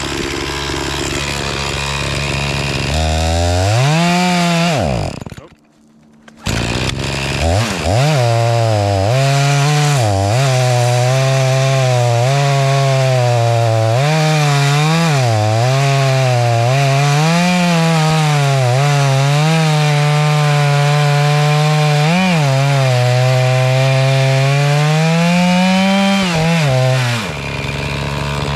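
Echo CS-490 two-stroke chainsaw revving up, then cutting through wood under load. Its engine note repeatedly sags as the chain bites and recovers as it frees. Near the end the note rises as the cut finishes, then drops back.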